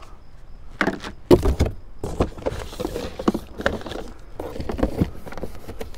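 Unpacking noises from a cardboard box: hard plastic parts knocking and clicking as they are handled, with a sharp knock just over a second in, then rustling of the box and packing mixed with small knocks as the pressure washer and its cord are shifted.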